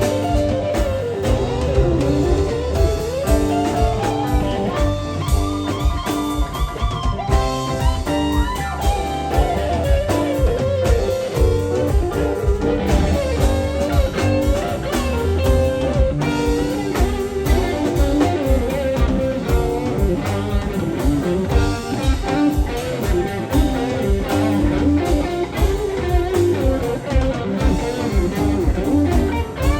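Live rock band playing an instrumental passage: an electric guitar plays a bending lead line over bass, keyboards and drum kit.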